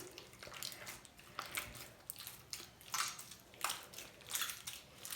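Slime with body lotion worked into it being stretched and kneaded by hand. It makes irregular wet clicks and squishes, a few of them louder than the rest.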